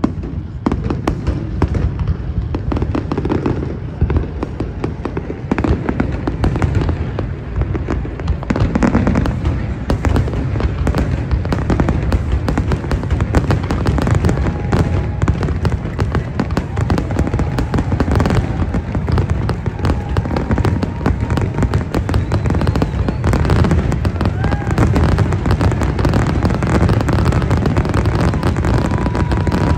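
Fireworks going off in a dense, unbroken barrage of bursts, bangs and crackles, many reports a second, building after about eight seconds, typical of a display's finale. Crowd voices sound beneath the bangs.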